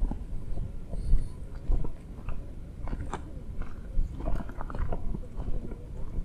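Footsteps crunching irregularly on loose, rocky ground over a low rumble.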